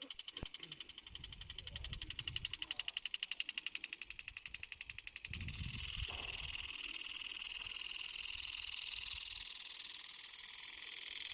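Impulse sprinkler running at 1.2 bar: a fast, even ticking as its spring-loaded arm strikes the water jet, with the hiss of spray. About halfway through, the ticking blurs into a louder, steady spray hiss.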